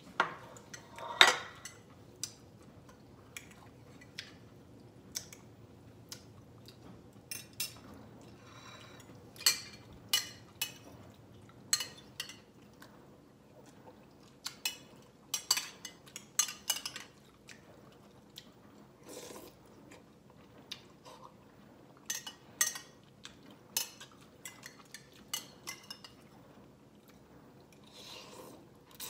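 A spoon clinking and scraping against ceramic bowls while someone eats noodle soup, with short, sharp clinks at irregular intervals throughout, the loudest about a second in, and quieter chewing between them.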